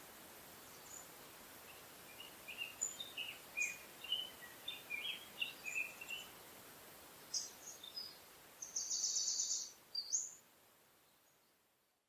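Small songbirds chirping, with many short quick calls, then a brief rapid trill about nine seconds in, over a steady faint outdoor hiss. The sound fades out near the end.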